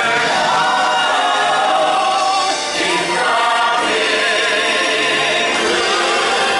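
Singing with musical accompaniment from a live stage musical, several voices singing a show tune over the music.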